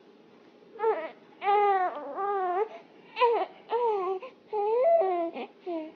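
A run of about eight short, whining cries, each bending up and down in pitch, starting about a second in.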